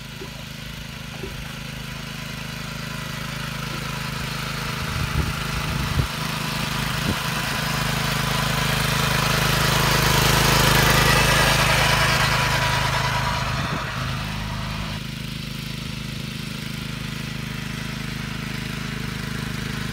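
Small engine of a crawler-tracked walk-behind cultivator running steadily under load as it works the soil between cabbage rows. It grows louder as the machine comes close, peaks about halfway through, then eases off, and its note shifts slightly around three quarters of the way in; a few light knocks sound around five to seven seconds in.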